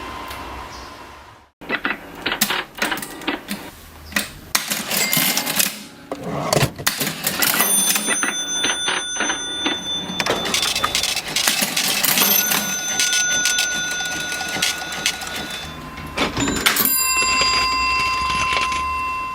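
Vintage mechanical cash register being worked: a ringing tone dies away, then a long run of clattering key presses and lever clicks with short bell-like tones among them. About three seconds before the end the register's bell rings and keeps ringing.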